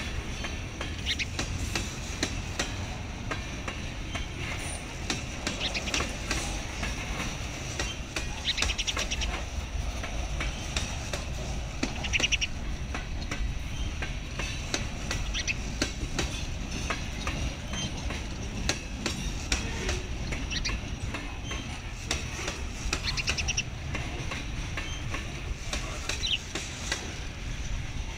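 Freight cars of a long train rolling past at a steady speed: a continuous low rumble of wheels on rail with a constant stream of clicks from wheels crossing rail joints.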